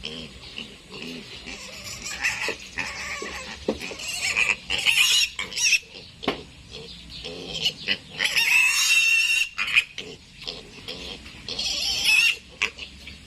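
Piglet squealing as it is handled for castration: loud, high-pitched screams in several long bouts, the longest about eight seconds in.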